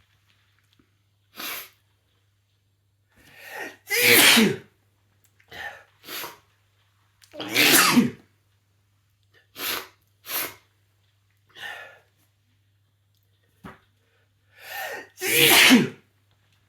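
A person sneezing three times, each loud sneeze preceded by a rising in-breath, with short breaths in between. It is a sneezing fit brought on by snuffing chhinkni, a herbal sneezing powder.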